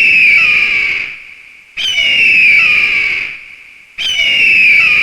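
Eagle screaming: a loud, harsh call that slides downward in pitch, repeated about every two seconds. The same call comes three times, the first already under way at the start.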